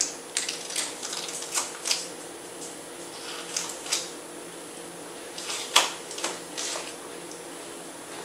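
Scattered light clicks and taps from a knife cutting pats off a stick of butter on a wooden cutting board, mixed with aluminium foil being handled as the pats go onto the meat. The sharpest click comes about six seconds in.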